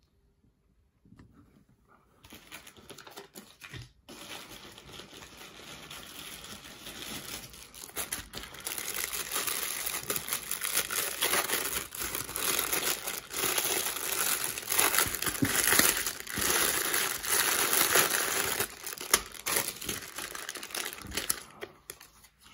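Packaging of a small building-block kit crinkling and tearing as it is opened by hand, starting about two seconds in and growing louder from about eight seconds in.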